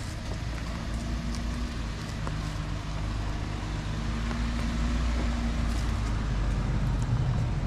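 2022 Toyota Tundra pickup's engine running at low speed as the truck crawls over rocky ground, a steady low hum that slowly grows louder, with a few faint clicks.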